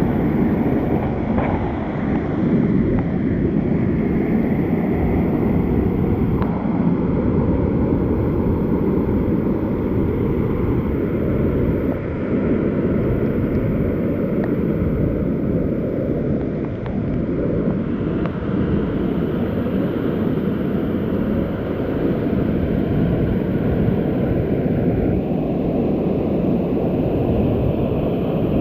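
Waterfall: a steady rush of falling water, deep and even, without a break.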